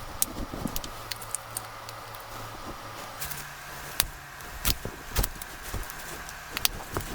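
Scattered sharp clicks and taps of small tools and plastic parts being handled while a Samsung Galaxy A13 is taken apart, about half a dozen in all. A faint steady hum sits underneath and shifts up in pitch about three seconds in.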